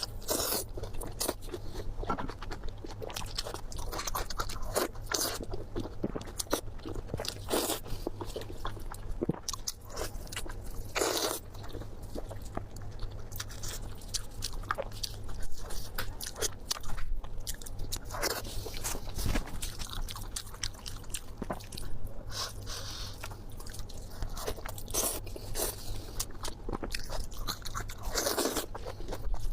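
Close-miked eating: repeated crunchy bites and chewing, with occasional scraping, from a mukbang eater.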